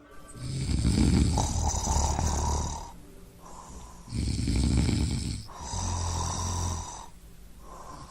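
A person snoring loudly in sleep: one long snore, then two shorter snores back to back.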